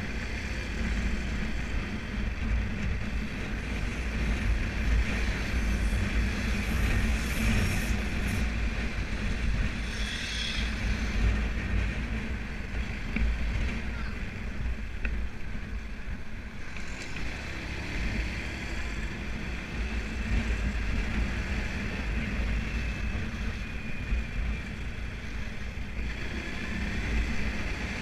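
Wind rushing over the microphone of a camera mounted on a moving motorbike, with the bike's engine and road noise underneath as a steady low rumble.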